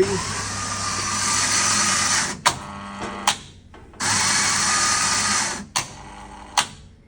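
A coffee vending machine's grinder and doser running in two bursts of about two seconds each, dispensing a ground-coffee dose while the dose is being calibrated. Sharp mechanical clicks come between and after the runs.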